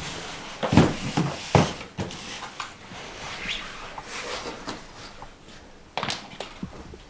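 Handling sounds on a wooden floor: two heavy thumps about a second in as a cardboard box is set down, rustling and shuffling of clothes and a shoulder bag, then another knock about six seconds in as the bag is put down.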